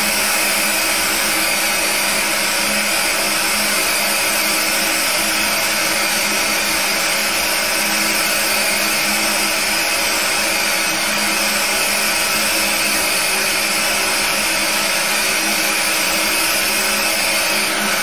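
Fiber laser engraver marking the copper case of a Zippo lighter: a steady buzzing hiss with several fixed whining tones layered in it.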